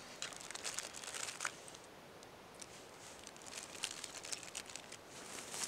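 Cellophane snack-cake wrapper crinkling faintly in the hands as it is pulled off a cupcake, in scattered short crackles.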